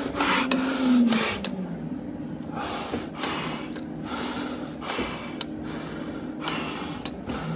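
A man breathing hard and heavily, deep loud breaths in and out about once a second: winded from exertion at the end of a long stair climb. A steady low hum runs underneath.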